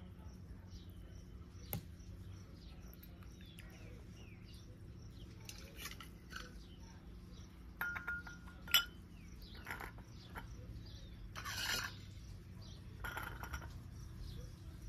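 A metal coin clinking against a cut-glass bowl as it is lowered into liquid: a few sharp clinks with a brief ring about eight to nine seconds in, then rustling handling noises.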